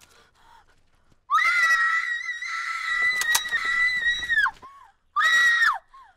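A person screaming at a high pitch: one long held scream of about three seconds with a sharp click partway through, then a second, shorter scream that drops in pitch as it ends.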